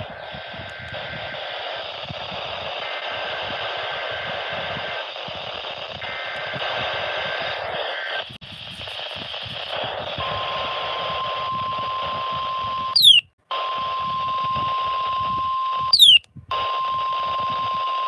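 NOAA Weather Radio signal through a small weather-radio receiver, under heavy static hiss. First come three short bursts of the SAME digital data header, then from about ten seconds in the steady 1050 Hz warning alarm tone. The tone is broken twice by a sharp falling chirp and a brief cut to silence.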